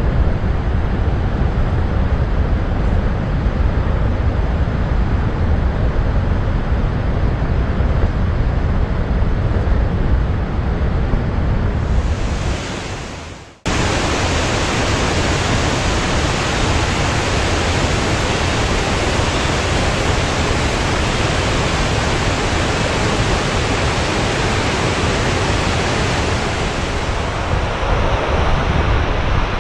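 Loud, steady rush of a swollen valley stream's water in spate. About twelve seconds in it fades, cuts out for a moment, then comes straight back at full strength.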